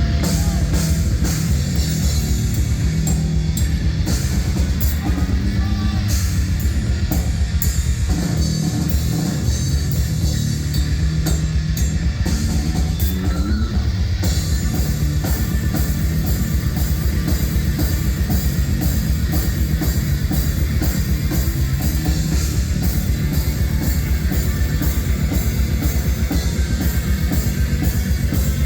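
Loud rock music with drum kit and guitar, played through a stage PA sound system, at a steady driving beat.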